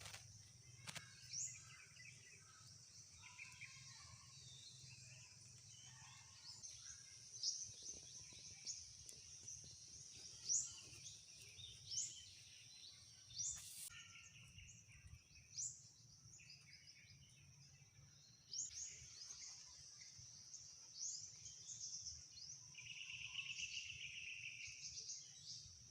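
Faint rural ambience: a steady high insect drone with short, rising bird chirps repeating every second or two, and a brief buzzing trill near the end.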